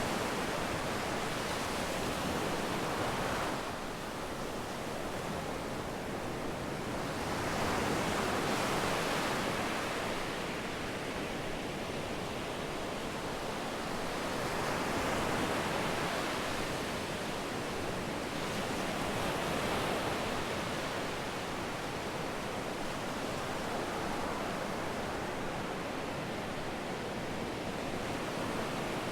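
Sea waves breaking and washing up on a sandy beach, a steady rush of surf that swells every few seconds, with some wind on the microphone.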